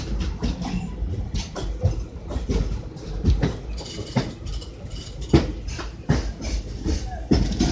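Train running on the track, with a steady low rumble and irregular clattering knocks from the wheels.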